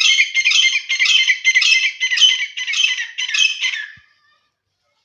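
Grey francolin calling: a loud, quickly repeated phrase about twice a second, cutting off abruptly about four seconds in.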